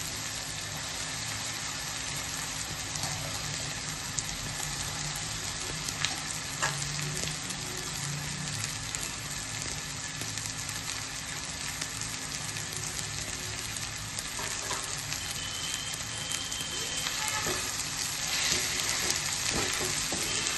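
Oil sizzling in a wok as shredded cabbage fries with onion and green masala, with a few clinks of a metal spatula. The stirring and scraping get louder near the end.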